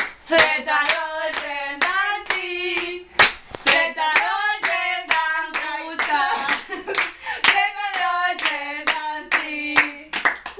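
Two women singing a lively song while clapping their hands along to the beat.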